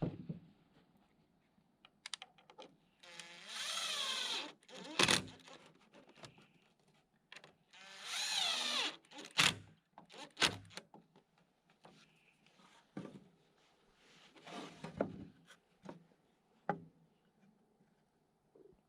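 A handheld cordless power drill or driver runs twice, for about a second and a half each time, its pitch rising and falling. Sharp knocks and clatter from wooden boards being handled come between the runs.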